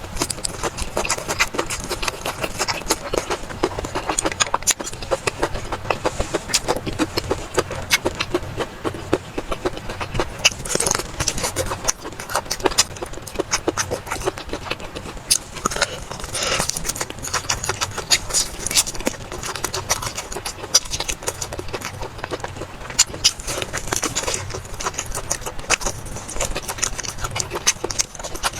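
Close-up eating sounds: dense, irregular wet clicks and smacks of chewing and slurping, over a faint steady low hum.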